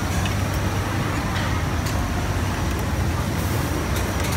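A steady low hum of running machinery or background noise, with a few faint light clicks of a metal tool working on a sewing machine's underside mechanism.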